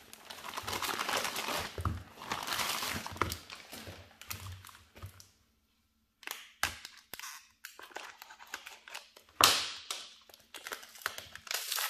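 Plastic mailer bag rustling and crinkling as it is torn and pulled open, then after a brief pause, scattered rustles and taps of cardboard-wrapped packages being handled, with one louder sharp crackle near the end.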